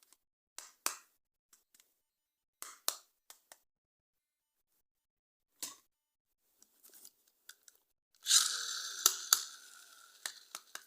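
Unboxing handling sounds: scattered small clicks and light rustles of toy packaging, then about eight seconds in a louder crinkling, tearing rustle that fades away.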